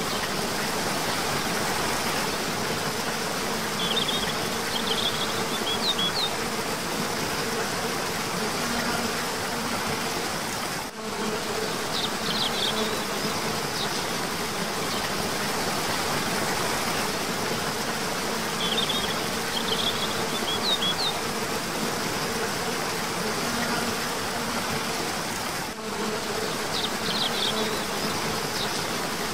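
Waterfall rushing steadily under a constant high insect buzz, with short clusters of bird chirps coming back every several seconds.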